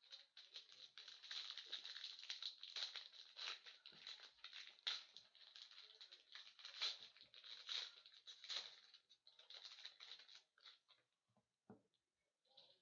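Hockey trading cards and their packaging being handled: quick, continuous rustling and crinkling with light clicks, dying away about a second before the end.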